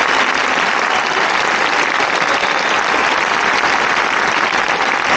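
Large crowd applauding steadily, the clapping of many hands blended into an even clatter.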